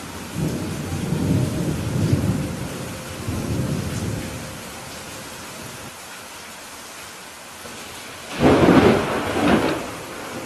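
Steady rain during a thunderstorm. A low rolling thunder rumble runs through the first four seconds, then a sharper, louder thunderclap hits about eight seconds in and cracks again a second later.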